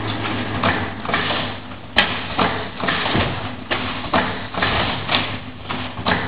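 Automatic roller-shutter assembling machine running: a steady low hum under repeated rattling and sliding strokes as aluminium slats travel over the roller conveyor, with a sharp click about two seconds in.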